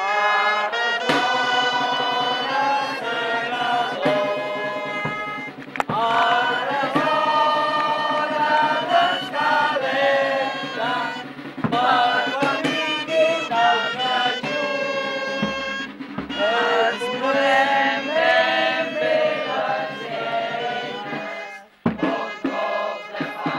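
A song with voices singing together over instrumental accompaniment, breaking off briefly near the end before picking up again.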